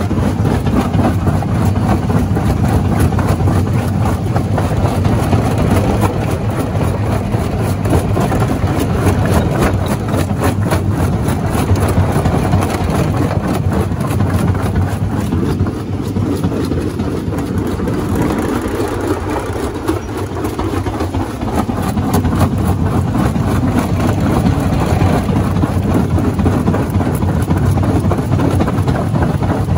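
Jaw rock crusher running and crushing rock: a steady low drone with a constant rattle of knocks and cracks from the stone in the jaws.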